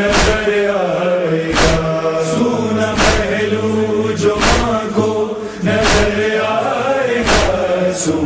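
Voices of a noha chorus chanting in long held notes, without clear words, over a regular strike about every one and a half seconds: the rhythmic chest-beating (matam) that keeps time in a noha.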